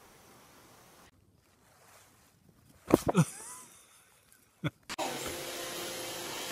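A couple of loud, sharp sounds about three seconds in, then from about five seconds in a robot vacuum cleaner running with a steady hum.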